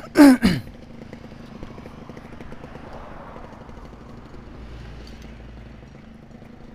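Yamaha RX-King two-stroke single-cylinder motorcycle engine: a brief loud rev falling away in pitch at the start, then running steadily at low revs as the bike rolls slowly to a stop.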